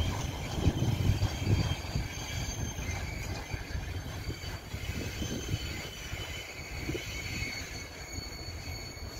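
Freight train of pear-shaped bulk tank wagons rolling away, its rumble fading as it recedes, with thin high wheel squeal.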